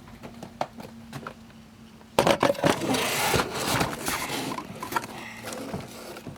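Handling of a large boxed toy's cardboard and plastic packaging: a few light clicks, then about two seconds in a burst of loud rustling and scraping that settles into quieter rubbing.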